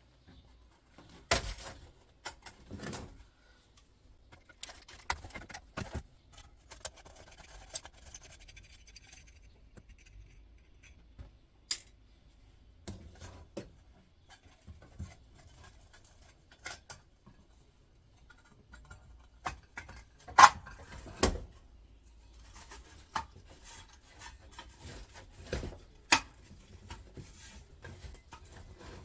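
Steel heat plate and hob casing being worked loose by hand with tools: scattered metal clinks, scrapes and knocks, the sharpest knock about twenty seconds in and another a few seconds later.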